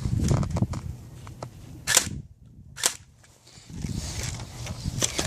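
Airsoft gun shots: two sharp cracks a little under a second apart near the middle, with a few fainter snaps around them.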